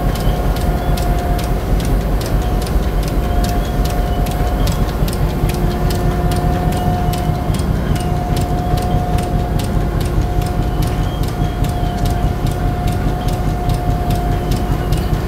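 Belt-driven Continental cotton gin machinery running: a steady hum and low rumble with a regular clicking about three times a second.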